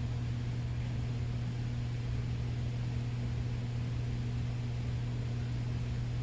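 Steady low electrical hum with a constant hiss underneath, unchanging throughout: background room tone.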